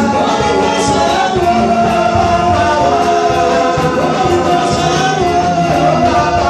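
Live gospel music: singing over a band with a steady beat.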